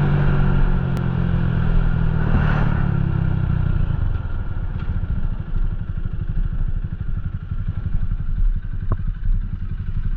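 Motorcycle engine slowing down with road and wind noise, then settling into a steady idle with an even low beat from about four seconds in.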